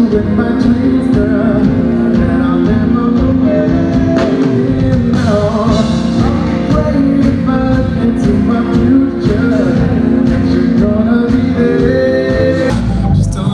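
Male soul singer performing live with his band: his voice over guitar, bass and a steady drum beat.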